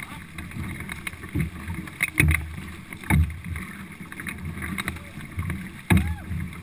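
Canoe paddles digging into and splashing the water beside a four-person racing canoe, with water rushing along the hull and wind on the microphone. Irregular louder splashes and knocks stand out, the strongest about two, three and six seconds in.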